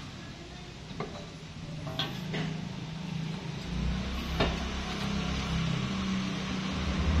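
A few sharp metallic clinks and knocks, four or so spread over the seconds, as a steel towing bumper is held up and fitted to the vehicle's rear mounts, over a steady low hum.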